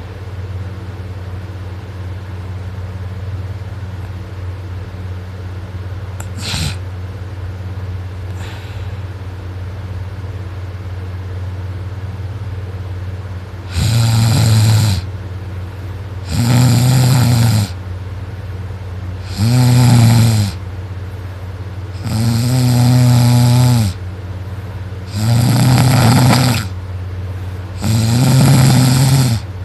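A person snoring loudly in deep sleep. For the first half there is only a steady low hum; then six loud snores come about every three seconds, each a second or two long.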